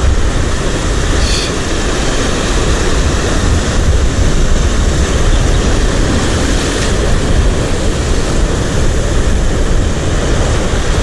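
Wind buffeting the microphone: a steady, loud rumble with hiss above it.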